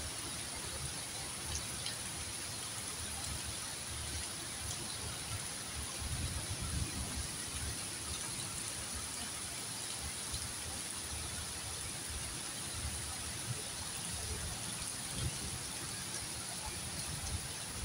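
Heavy rain falling steadily on trees and surfaces, an even hiss, with irregular low rumbling underneath.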